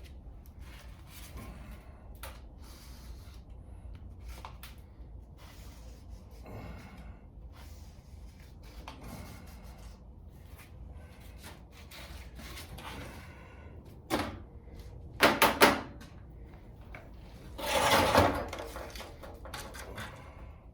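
Intermittent knocks and clatter of things being handled, with a few loud sharp knocks about two-thirds of the way through and a short, louder scraping rush soon after.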